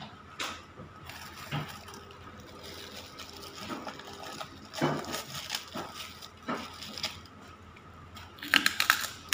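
Clear plastic bag crinkling and rustling as it is handled and opened. Near the end comes a quick run of loud, sharp crunches as a crisp cracker (kerupuk) is bitten.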